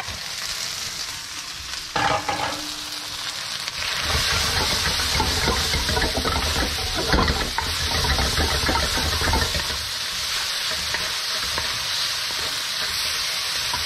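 Beef strips with freshly added minced garlic and ginger sizzling in hot oil in a wok over high heat, while a wooden spatula stirs and tosses them. There is a short knock about two seconds in, and the stirring and scraping get busier from about four seconds to nine.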